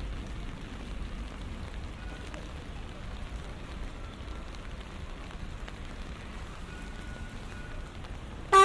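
Steady hiss of rain on a city street. Near the end a car horn sounds once, short and loud.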